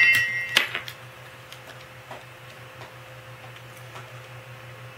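The tail of a 'Cheers!' talking button's playback rings for about half a second and ends in a click. Then come faint scattered ticks of a small dog's claws on a wooden floor over a low steady hum.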